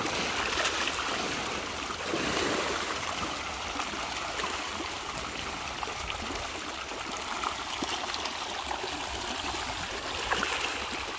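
A dense shoal of large fish thrashing at the pond surface: a steady churning of water, many small splashes and slaps.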